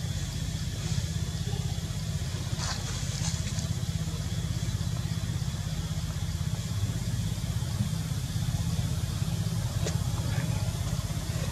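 A steady low engine hum, like a motor idling, with a few faint high ticks.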